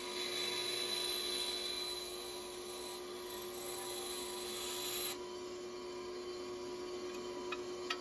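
Bandsaw cutting through rosewood: an even hiss from the blade over the saw's steady running hum. The cut ends abruptly about five seconds in and the saw runs on, with a couple of light clicks near the end.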